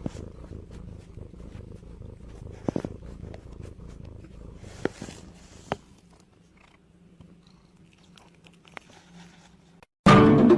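A domestic cat purring close up, a steady pulsing rumble with a few light clicks, which dies down about six seconds in. Loud music cuts in near the end.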